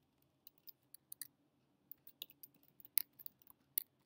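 Faint computer keyboard keystrokes: about fifteen short clicks at an uneven typing pace, as a line of code is typed.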